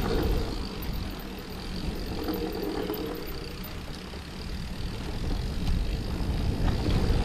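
Mountain bike rolling fast down a dirt forest trail: a steady low rumble of wind on the microphone and tyre noise on the ground. It eases off twice and grows louder near the end as the bike picks up speed.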